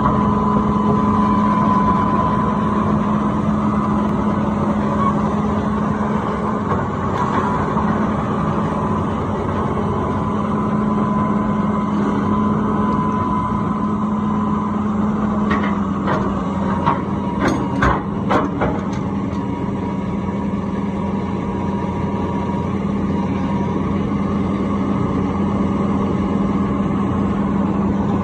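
A John Deere 450C LC hydraulic excavator's diesel engine runs steadily with a steady high whine over it. A cluster of sharp clanks and knocks comes about halfway through as the machine moves on its tracks.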